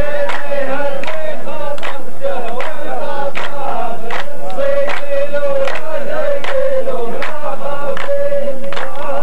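A row of men chanting a verse of a muhawara poetry duel in unison, one long held and wavering melodic line, with sharp hand claps about once a second.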